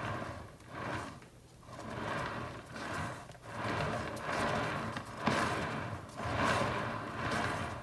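Swivel turntable bearing rumbling as it is spun by hand, swelling and fading with each push about once a second.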